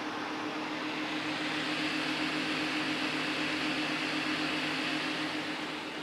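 Twin fans of a Peltier thermoelectric cooler running, a steady whir with a constant low hum, a little louder for a few seconds in the middle.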